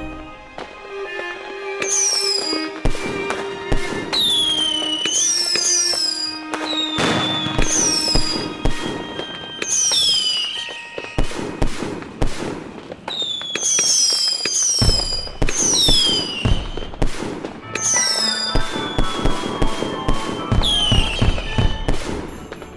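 Fireworks going off in quick succession: many sharp bangs and repeated high whistles falling in pitch, over background music.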